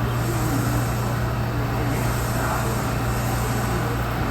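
Inside an R179 subway car as the train runs through the tunnel: a steady rumble of wheels on rail with a constant low hum.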